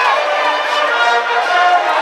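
High school baseball brass band playing a cheering tune, brass holding steady notes, with crowd voices underneath.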